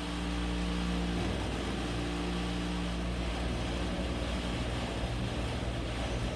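Elevator running: a steady low drone made of several hum tones over a rushing noise, the unexplained weird sound the elevator makes.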